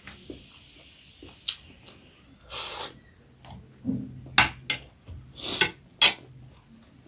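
Eating utensil clinking and scraping against a bowl or plate of momo: a few sharp clicks and two short scrapes.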